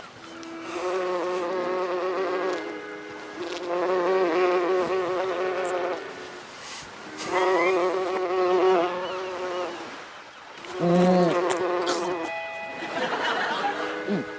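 Buzzing insect, in about four bouts of roughly two seconds each with short breaks between them, its pitch wavering.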